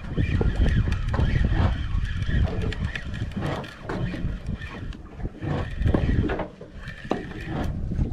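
Wind buffeting the microphone with an uneven low rumble, over scattered clicks and knocks from a spinning reel being handled and wound.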